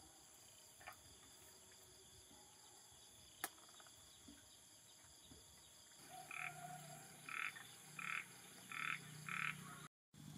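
A frog croaking five times in quick succession in the second half, over a faint steady background. A single sharp click comes a little past a third of the way in.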